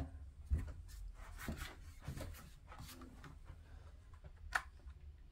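Light knocks, clicks and rubbing as a Kamrui AK1PRO mini PC is handled and a cable is plugged into its back. The sharpest clicks come at the very start and about half a second in, with another near the end.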